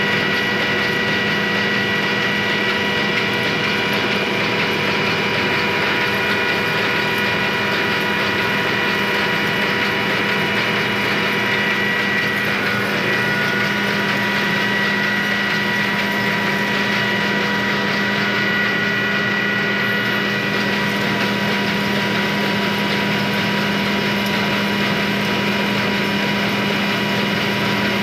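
Rice mill machinery running steadily: a dense mechanical rattle with a constant low hum and a high whine over it.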